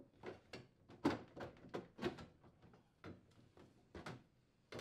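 Plastic lower freezer drawer of a KitchenAid refrigerator being squeezed and lifted off its metal slide glides: a series of light clicks and knocks, loudest about a second in.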